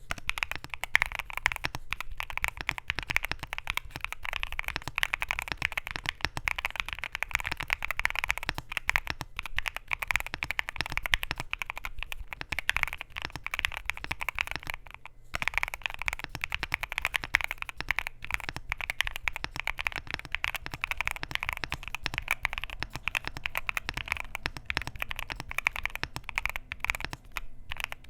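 Continuous fast typing on a Luminkey LK65 mechanical keyboard with Gateron Sylva linear switches, a polycarbonate plate, silicone gasket mount and PBT Cherry-profile keycaps: a dense stream of key clacks, with a brief pause about fifteen seconds in.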